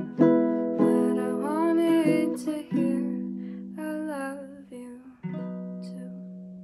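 Makala ukulele, capoed, strummed in chords while a woman sings two short phrases over it. A final chord struck about five seconds in is left to ring and fade out, ending the song.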